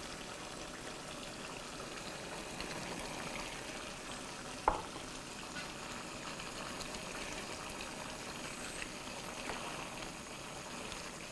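A pan of Persian green bean and beef stew simmering steadily on the stove, with one short knock a little before halfway through.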